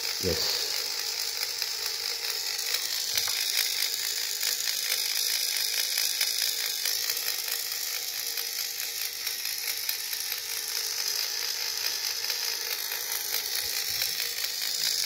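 Small electric oil pump of an automatic oiler running, a fast, steady mechanical clicking; the oiler is working and feeding two-stroke oil.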